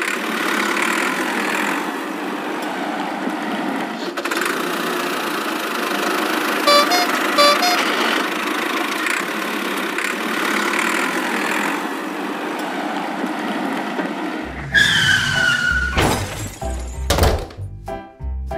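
A steady engine-like sound effect for the toy tractors, with two short tones about seven seconds in. About fourteen seconds in, music with a heavy beat starts, with a falling whistle-like tone and a few sharp crash sounds as the toys pile up.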